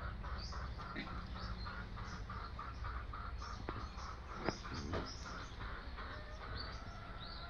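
Faint bird chirping: one short chirp repeated steadily, about three or four times a second, with a couple of soft knocks in the middle.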